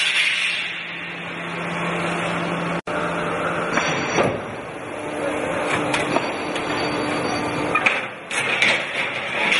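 Steady machine hum from an Ermaksan CNC sheet-metal machine, with a few sharp knocks about four and eight seconds in.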